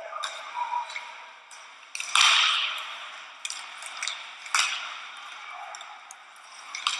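Ice hockey play heard from the stands: scattered sharp clicks of sticks and puck, and skates scraping on the ice, with a louder scraping rush about two seconds in.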